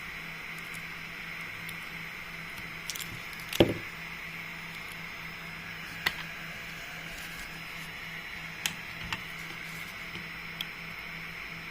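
Scattered light clicks and one sharper knock from handling parts on a workbench, over a steady hiss and faint hum.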